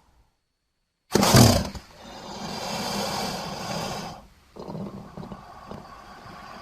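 Cartoon crocodile roar sound effects: a short, loud roar about a second in, then a longer drawn-out roar, and after a brief break a quieter, lower rumbling growl.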